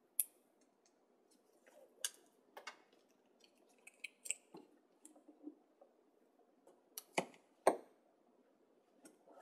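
Faint paper handling: the liner being peeled off an adhesive paper hinge strip, paper crinkling, and the strip and chipboard pieces tapping on a table. There are scattered sharp clicks, the two loudest a little after seven seconds in.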